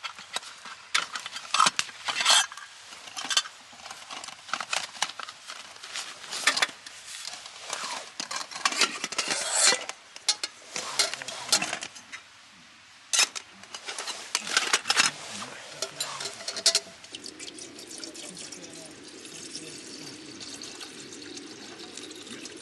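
Cookware and utensils being handled, with many sharp clinks and knocks, giving way about three quarters of the way through to a steadier, even noise.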